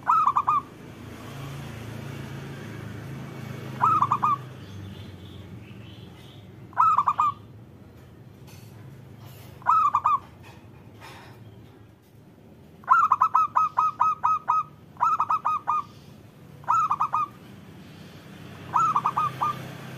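Zebra dove (perkutut) cooing: short phrases of three or four quick rolling notes, repeated about every three seconds, with one longer run of about eight notes midway.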